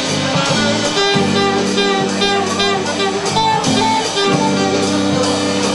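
Live rock band playing an instrumental passage: a saxophone carries the melody over electric guitar and a drum kit.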